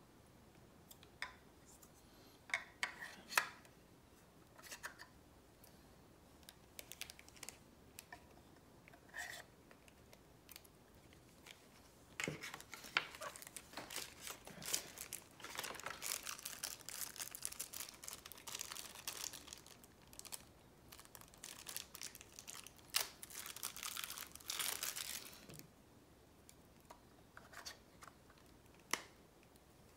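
Hands unpacking camera accessories: scattered light clicks and taps at first, then from about twelve seconds in some thirteen seconds of dense crinkling and tearing of packaging, then a few more taps.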